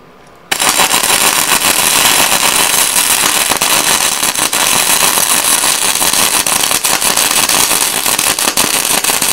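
Gasless flux-core MIG welding arc crackling steadily as a bead is run along a steel seam. It strikes up about half a second in.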